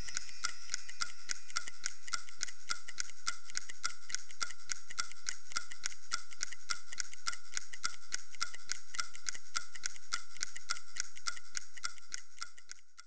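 Rapid, evenly spaced mechanical ticking, several ticks a second, over a steady high hum and hiss. It fades out near the end.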